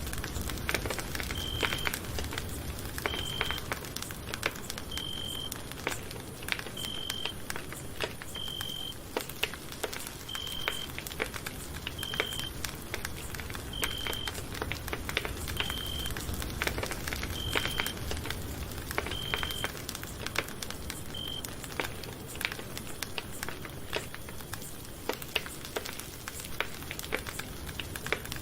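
Campfire crackling, with irregular sharp snaps over a steady hiss. A short high beep repeats about every two seconds and stops about two-thirds of the way through.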